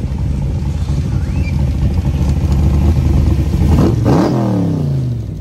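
Shelby Cobra replica roadster's engine rumbling as it drives slowly past, growing louder to a peak about four seconds in, then its note dropping as it goes by and away.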